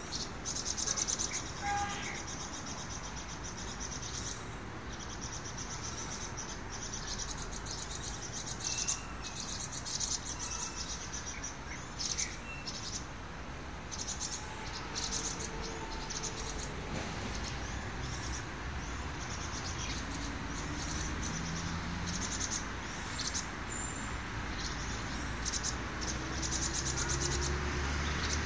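Outdoor insects buzzing in repeated short, high-pitched bursts, with a few brief bird chirps. A low rumble swells over the last few seconds.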